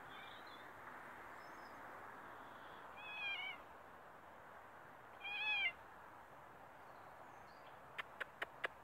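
Domestic cat meowing twice, two short calls about two seconds apart. Near the end come four quick sharp clicks.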